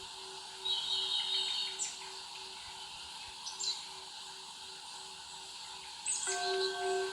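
Birds chirping in short high calls a few times over a steady outdoor background hiss, with a faint pulsing hum underneath. Near the end a cluster of steady pulsing tones joins in.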